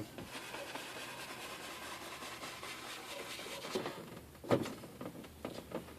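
Paintbrush scrubbing paint onto a canvas in steady strokes, stopping about four seconds in, followed by a couple of light knocks.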